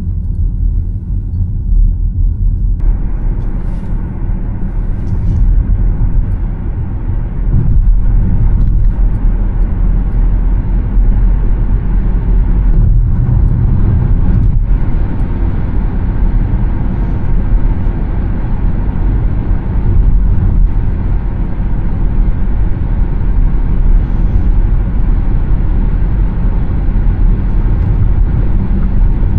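Tyre and wind noise of a Škoda Elroq electric car on the move: a loud, steady low rumble with no engine note. About three seconds in it suddenly widens into a fuller rushing hiss and stays even at freeway speed.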